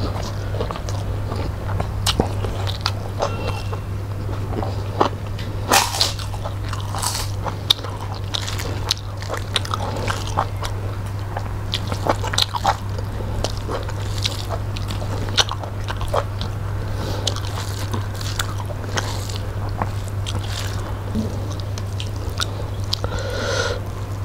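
Close-up eating sounds of two people eating rice and fish curry by hand: chewing and lip-smacking with many short irregular clicks, over a steady low hum.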